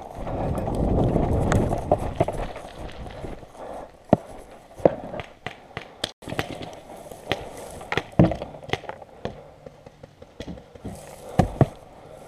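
Heavy rustling of movement through woods during a paintball game for the first two or three seconds, then a quieter stretch broken by scattered single sharp snaps.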